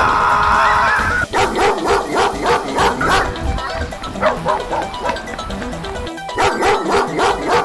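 Playful background music: a held note cuts off about a second in, then short bouncy notes repeat a few times a second.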